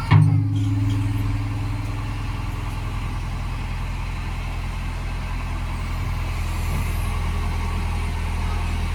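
A short loud sound right at the start, then a heavy diesel engine running steadily at low revs, a little louder over the last few seconds.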